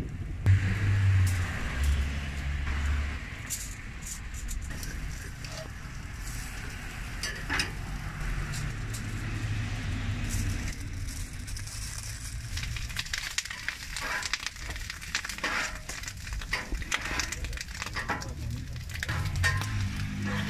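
Meat sizzling on a flat-top steel griddle, with a metal spatula scraping and tapping on the steel in many quick strokes through the second half. A low hum comes and goes under it in the first half.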